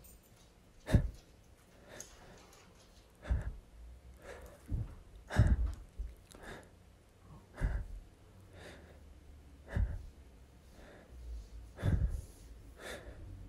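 Intense sniffing close to the microphone: short, sharp sniffs through the nose, about one every one to two seconds, some with a low breathy rumble.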